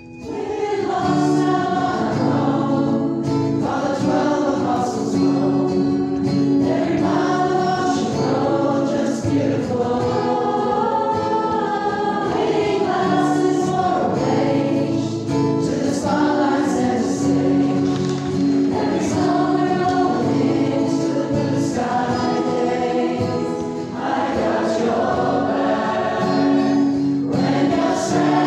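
Soundtrack music: a choir singing in layered harmony, held chords that shift every second or two.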